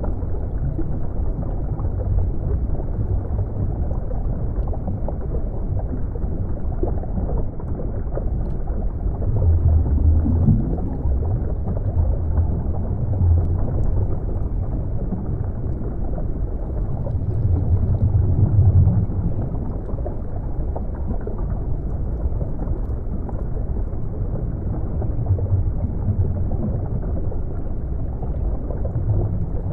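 Underwater ambience: a steady, muffled, low rumbling wash of water. It swells louder twice, about a third of the way in and again just past the middle.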